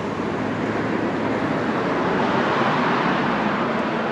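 Road traffic: a passing vehicle's tyre and engine noise, an even rush that swells and then eases off.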